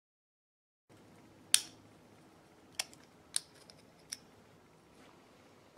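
A few sharp metallic clicks as the transmission's front servo piston and its sealing rings are handled and fitted. The loudest click comes about a second and a half in, and three lighter ones follow over the next few seconds, after a second of silence.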